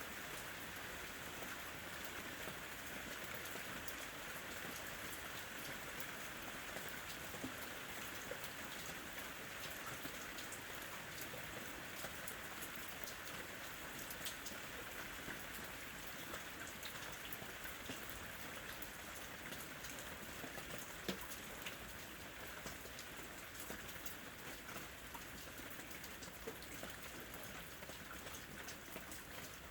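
Steady rain falling, an even hiss with scattered individual drops ticking on a surface, easing off slightly toward the end.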